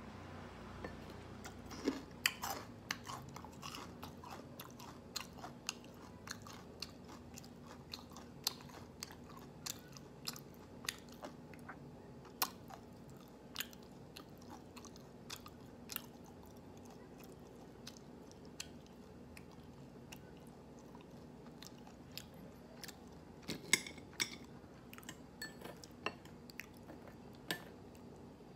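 A person chewing crispy deep-fried battered pork close to the microphone, with many short, irregular crunches. The crunches come thickly in the first dozen seconds, thin out in the middle and pick up again near the end.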